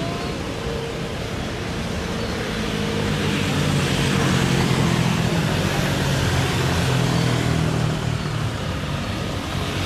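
Jet airliner engines running loud and steady, a dense rushing noise with a low hum underneath that swells to a peak about halfway through and then eases off.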